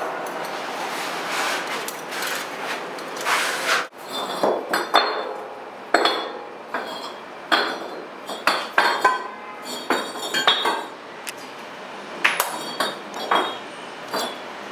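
A steady hiss for about four seconds that cuts off suddenly, then a run of sharp metallic clinks and taps, some ringing briefly.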